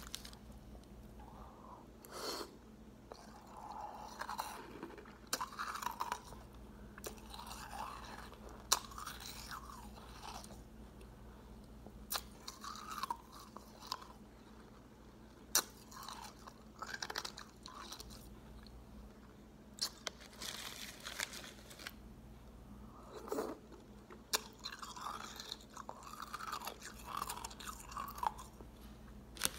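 A person chewing mouthfuls of crushed ice: irregular crunching and crackling, with a few sharp cracks now and then.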